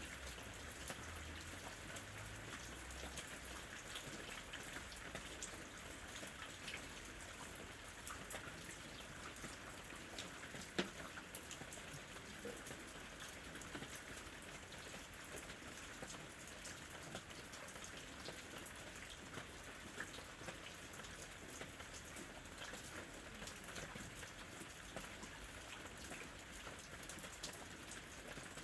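Steady rain falling on a surface, with many small separate drop hits over an even hiss. There is one sharper, louder drop tap about eleven seconds in.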